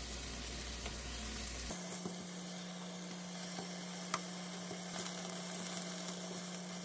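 Sliced mushrooms, zucchini and red bell pepper sizzling steadily in a frying pan, with a few light clicks of kitchen tongs as the slices are turned.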